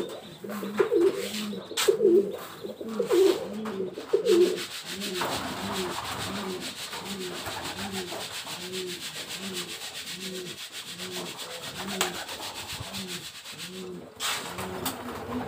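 Domestic pigeons cooing over and over, a little under two coos a second, loudest in the first four seconds. From about four seconds in until near the end, a steady rasping, scraping noise runs under the coos.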